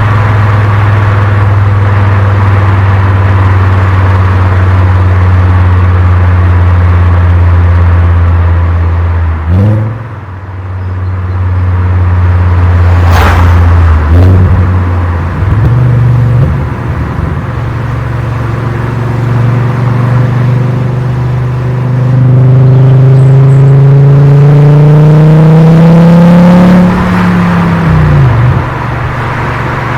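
Volkswagen Golf Mk4 VR5's 2.3-litre five-cylinder V5 engine and exhaust on the move: a steady drone, broken twice by short dips in the first half. Then a long pull with the pitch rising for several seconds, which drops off sharply near the end.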